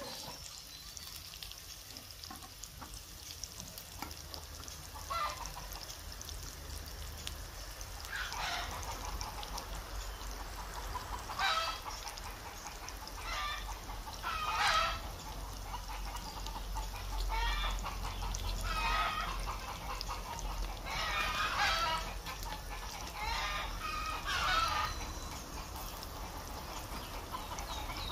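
Chickens clucking, with a rooster crowing: separate calls every second or two, coming more often in the second half.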